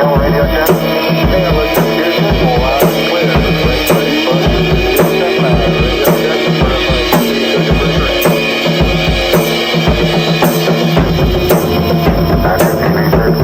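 Drum kit solo, with steady bass drum thumps and snare hits throughout. Jungle sound effects are layered underneath.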